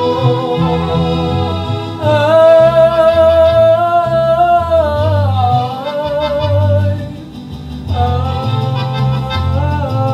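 Male singer performing a ranchera ballad over a recorded backing track with a bass line, holding a long note with vibrato from about two seconds in that falls away, then starting the next line about eight seconds in after a short dip.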